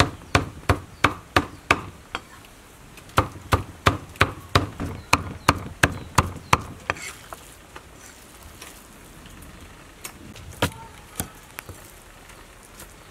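Knife chopping pork on a wooden chopping block, mincing it: sharp, even strokes at about three a second in two runs with a short pause between, then a couple of lone knocks near the end.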